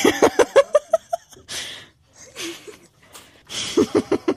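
A woman laughing hard in quick, pulsed ha-ha bursts, breaking off twice for loud breathy gasps before the laughter starts up again near the end.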